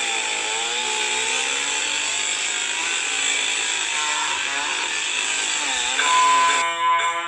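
Chainsaw engine running and revving, its pitch rising and falling repeatedly. Near the end the sound changes to a few steady held tones.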